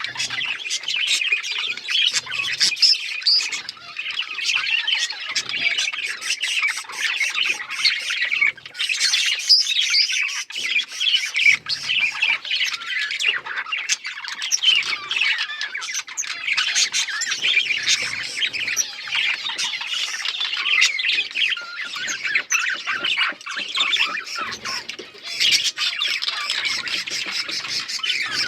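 A flock of small Australian parrots chattering and squawking continuously, many birds calling over one another.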